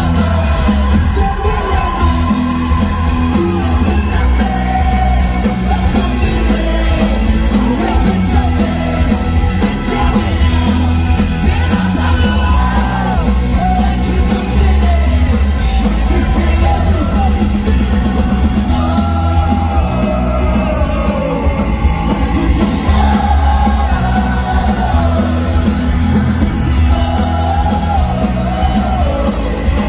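Live ska-punk band playing loudly, with a woman singing lead over electric guitar, drums and keyboards and a heavy, steady bass.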